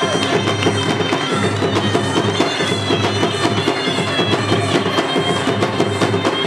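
Odia folk dance music: a shrill reed pipe playing a melody over fast, steady drumming and a low drone.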